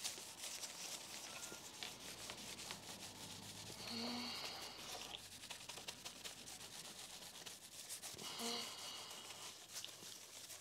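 Paper towel wiped and scrubbed back and forth over a Commodore PET keyboard's circuit board to clean it with isopropyl alcohol: a faint scratchy rubbing. Two short pitched sounds come about four and eight and a half seconds in.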